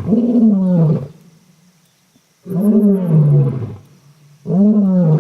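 Lion roaring: three long calls, each about a second long, rising and then falling in pitch, with pauses of a second or more between them.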